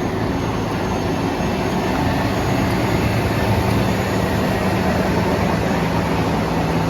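Engine of a cable-pulling winch running steadily under load, hauling an underground power cable through a duct.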